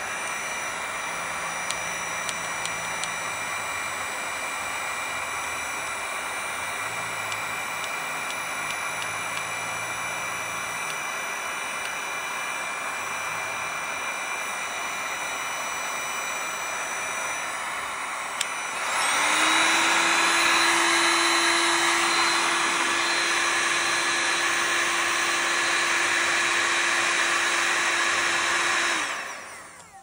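Sumsour electric heat gun blowing air with a steady fan hiss and whine. About two-thirds of the way through it steps up to a louder setting with a deeper steady hum added. Near the end it is switched off and runs down.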